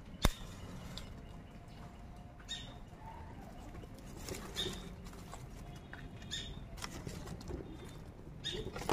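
Dry leaves rustling and crackling as they are crumpled by hand and pushed into a clay mud stove to light it. The rustles come in short bursts every couple of seconds, with a sharp click just after the start.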